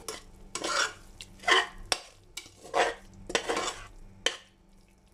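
Metal spoon stirring and scraping thick masala around the bottom of a pressure cooker: six or seven separate scraping strokes, the last a sharp scrape.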